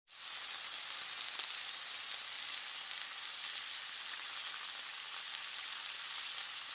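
Steady sizzling with fine crackles, as of food frying in hot oil.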